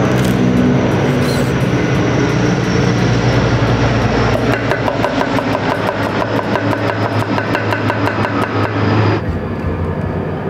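Chef's knife chopping celery on a wooden cutting board. The knife strikes in a fast, even rhythm of about five chops a second from about four seconds in to about nine seconds, with a few scattered cuts before that. A steady low hum runs underneath and cuts off suddenly about nine seconds in.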